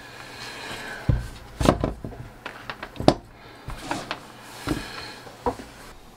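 Handling noises: several separate knocks and clicks as a battery-powered soldering station and its cable are moved about and set down on a wooden workbench. The loudest knock comes about three seconds in.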